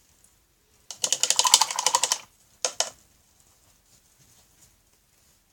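Rapid run of light tapping clicks, about ten a second for just over a second, then two sharper taps: a paintbrush dabbing against the painting surface.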